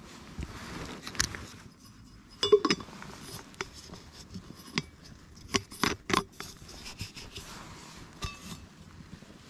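Sharp metal clinks and knocks from a stainless steel container being handled, with some rustling. The loudest cluster comes about two and a half seconds in, and a few more knocks follow around six seconds in.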